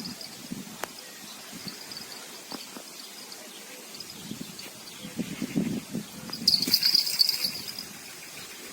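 Quiet outdoor ambience with faint high-pitched chirping, which swells into a louder burst about two-thirds of the way through, and a few soft low thuds.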